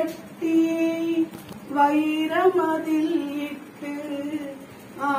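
A woman singing a lullaby unaccompanied as the baby is swung in a cloth cradle: a slow tune of long held notes in phrases with short pauses between them.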